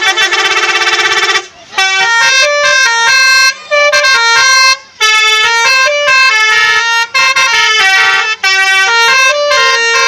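Basuri telolet multi-tone bus horn playing a fast tune of short stepped notes. It opens with a rapidly warbling held chord for about a second and a half, then runs through the melody with a few brief breaks.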